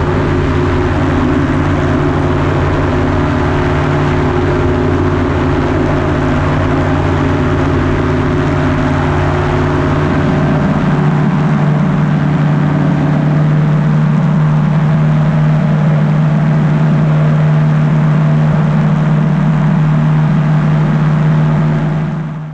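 Powered parachute's engine and pusher propeller running steadily in flight, heard from the open cart with air rushing past. About halfway through, the engine note changes as the lowest hum drops away.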